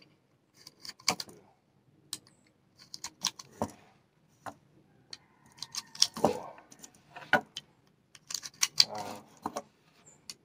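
.45 ACP cartridges being pressed one at a time into a 1911 pistol magazine: irregular metallic clicks and small rattles, with short pauses between.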